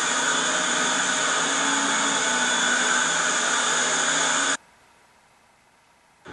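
Buckingham Fountain's water jets spraying and splashing into the basin, a steady loud rush of water. It cuts off suddenly about four and a half seconds in, leaving near silence.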